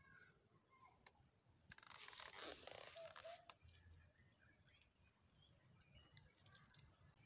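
Roasted maize cob crunching as it is broken and bitten. The crunch is loudest for about a second and a half, starting about two seconds in, and is followed by faint chewing.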